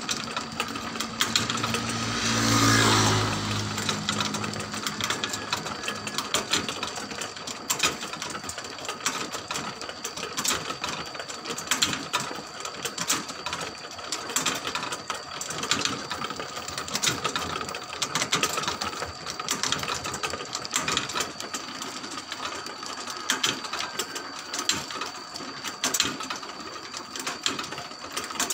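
Motor-driven rotisserie spits turning on their toothed sprocket drive: a steady, fast mechanical clatter of clicks with a thin high whine underneath. About two to three seconds in, a brief louder swell with a low hum rises and fades.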